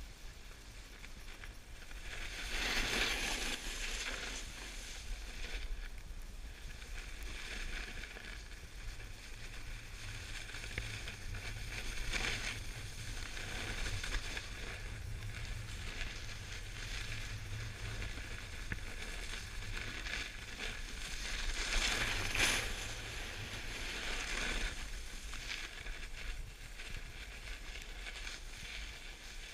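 Snowboard sliding over packed snow, a steady hiss with a low rumble underneath. The scraping swells louder twice, about two to four seconds in and again just past twenty seconds, as the board's edge carves into a turn.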